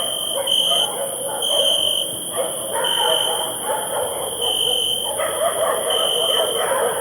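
Dogs barking over crickets chirping, with a steady high insect hiss beneath. The short, clear cricket chirps repeat about once a second.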